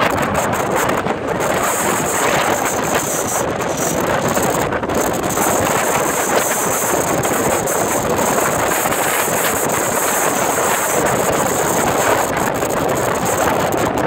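Wind buffeting the phone's microphone over heavy storm surf breaking on a rock breakwater: a loud, steady rushing noise.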